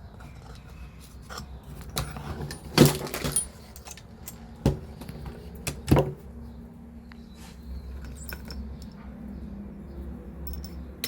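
Metal clicks and knocks from handling an airsoft AEG rifle while working at its receiver takedown pins, with the loudest knock about three seconds in and others near two, four and a half and six seconds.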